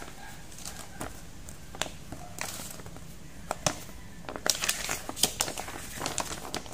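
Thin plastic wrapping crinkling and paper rustling as an instruction booklet is pulled out of its plastic sleeve and unfolded. The sound is a run of scattered sharp crackles that grows busier and louder over the last couple of seconds.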